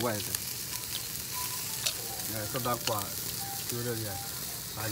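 Fish and meat sizzling on a small round grill: a steady hiss, with quiet voices now and then.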